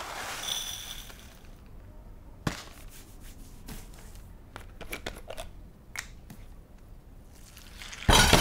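Kitchen clatter from dishes and utensils being handled at a counter: scattered light clicks and knocks, then a loud clatter of crockery and pans near the end.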